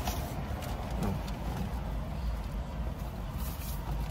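Steady low rumble of a car's cabin, with soft rustling from paper food bags and wrappers being handled.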